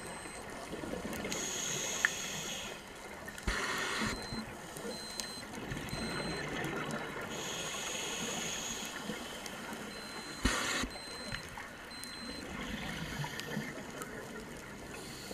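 Scuba regulator breathing heard underwater: a hissing inhale about a second in and again around eight seconds, each followed a couple of seconds later by a short rush of exhaled bubbles, over a steady watery background.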